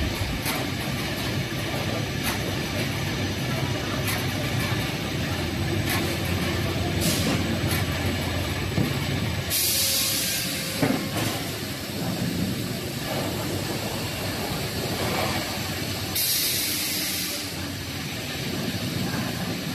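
Automated board-handling and EPE foam-laying machinery running with a steady mechanical din, broken twice by a sharp hiss of released compressed air, each a little over a second long, about ten and about sixteen seconds in.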